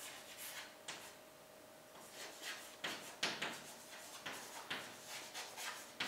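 Chalk writing on a chalkboard: a faint string of short, irregular taps and scrapes as the chalk strokes out letters.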